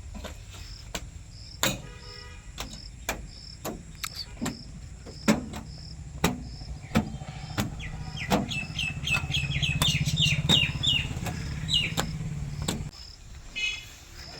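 Low engine drone that gets louder through the second half and cuts off suddenly near the end. Over it a cricket chirps evenly about twice a second, with scattered sharp clicks and a brief burst of bird twittering.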